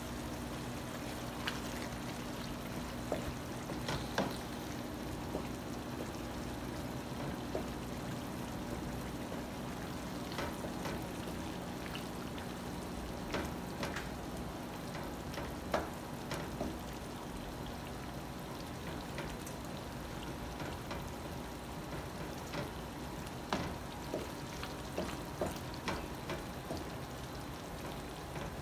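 Tomato pasta sauce sizzling and simmering in a frying pan, a steady crackling hiss with occasional small clicks over a faint steady hum.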